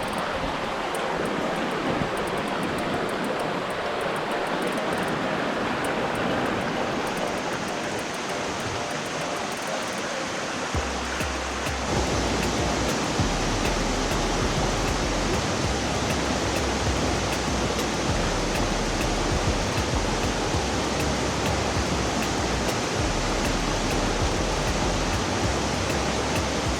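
Rushing creek water, a steady dense hiss; about 11 seconds in it grows fuller and a low rumble joins it.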